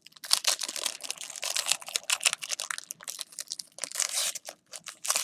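Foil trading-card pack wrapper being torn open and crinkled by hand, a quick irregular series of crackles.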